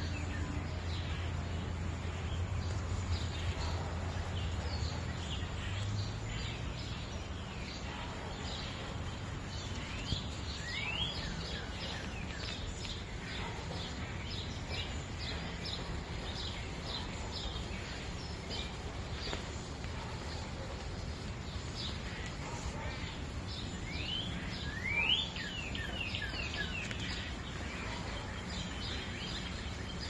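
Woodland birds chirping again and again, with quick rising whistled calls about three seconds in and again around 25 seconds, over the steady rush of a shallow forest creek. A low rumble fades out about six seconds in.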